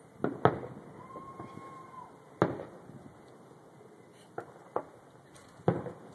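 Fireworks exploding: about six sharp bangs at irregular intervals, two in quick succession near the start, with a short steady tone about a second in.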